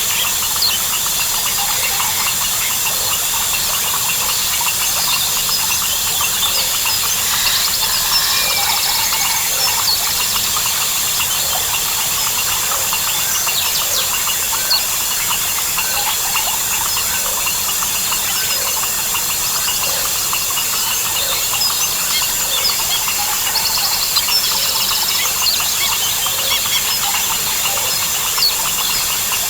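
Dense tropical rainforest chorus: a steady high-pitched trilling of crickets and other insects, frogs calling with a low note repeating about every second and a half, and scattered bird chirps.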